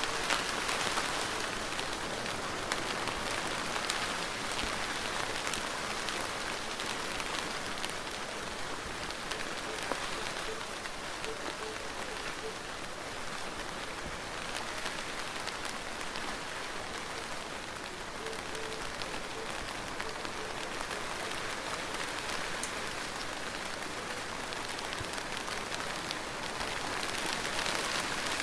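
Steady rain falling and pattering on a surface, a dense hiss with many small drop ticks, swelling a little louder near the start and the end.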